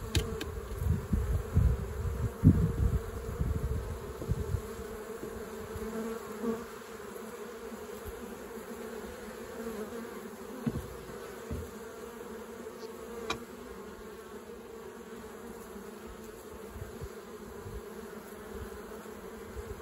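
Honeybees buzzing at a hive entrance: a steady hum as foragers land and take off. Low, irregular rumbling on the microphone during the first few seconds, and a single sharp click about halfway through.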